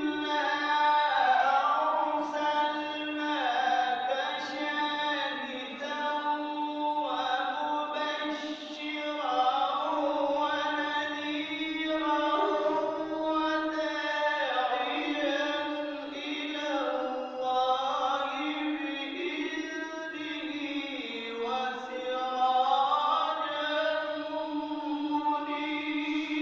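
A man's solo voice chanting a melodic recitation from a book, with long held notes that slide and bend in pitch between short breaks.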